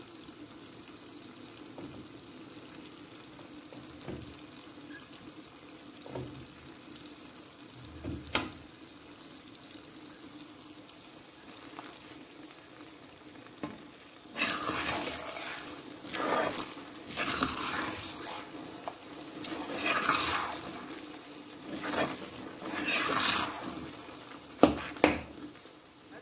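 Thick apple halwa cooking in ghee in an iron kadai, stirred and turned with a perforated metal spatula. Faint at first over a steady low hum, then from about halfway a run of loud wet stirring strokes, about one a second, with a sharp knock of the spatula near the end.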